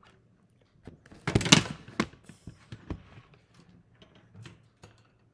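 Objects being handled: a short clatter about a second in, followed by a few sharp knocks and small clicks.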